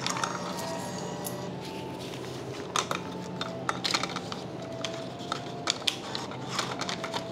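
Vending machine bill acceptor clicking and rattling as a banknote is pushed into its slot and handled, over a steady low hum from the machines. The machine won't take the note, an old-series 1,000-yen bill.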